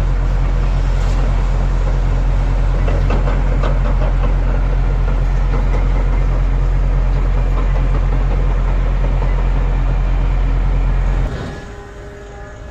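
Heavy diesel mining machine running steadily under load: a deep, even engine drone with rattling and clanking over it. It cuts off abruptly about eleven seconds in, leaving a much quieter background with a few steady tones.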